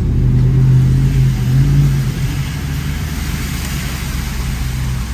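Hummer H2's V8 engine revving hard as the truck accelerates into a shallow stream, its pitch rising for the first two seconds. From about two seconds in, a steady hiss of water spray and splashing from the tyres comes in over the engine.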